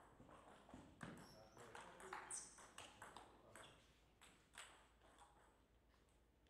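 Table tennis ball being struck by paddles and bouncing on the table during a rally: a quick, irregular series of sharp clicks, easing off after about five seconds.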